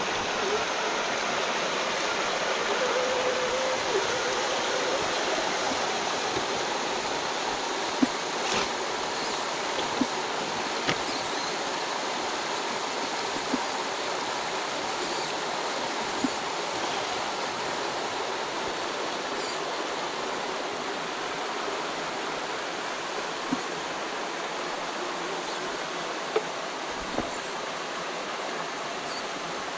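Creek water rushing steadily over rocks, with a few short, sharp knocks here and there.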